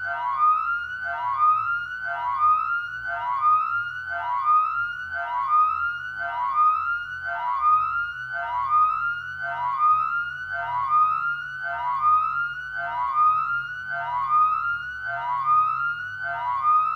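Electronic alarm: a pitched tone that sweeps upward, repeating a little under twice a second without pause, over a faint low rumble.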